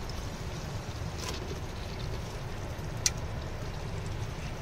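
A steady low rumble, with two sharp clicks: one about a second in and a louder one near the three-second mark.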